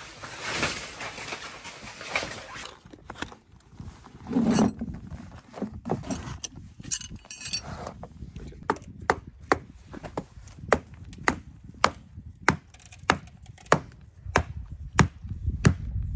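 Hammer driving steel tent stakes into the ground: sharp, evenly spaced blows, a little under two a second, starting about halfway through. Before that, tent fabric rustling as it is handled.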